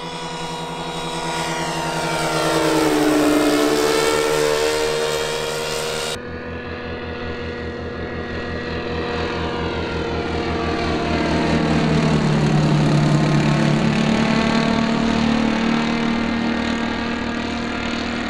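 Twin four-stroke glow engines of a large radio-controlled Cessna 337 Skymaster model (an OS 95 in front, a Magnum 91 behind) running in flight. The sound swells as the model passes about three seconds in, its pitch dipping and coming back up, and swells again around twelve to fourteen seconds in. The sound changes abruptly about six seconds in.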